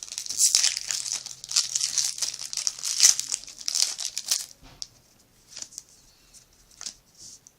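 A foil Yu-Gi-Oh booster pack wrapper crinkling and tearing as it is opened, a dense rapid rustle for about four and a half seconds, then only a few faint clicks and rustles.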